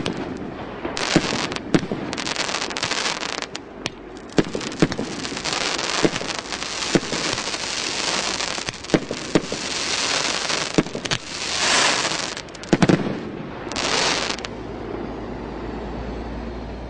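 CGFP-567 multi-shot firework cake firing: sharp bangs at irregular intervals as shells launch and burst, over a dense crackling hiss. The shots stop about three-quarters of the way through, leaving a low steady hum.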